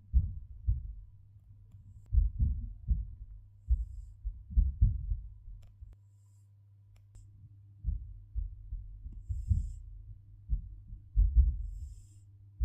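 A sleeping cat snoring: low, rough snores come in bunches every two to three seconds with its breathing. A faint steady hum runs underneath.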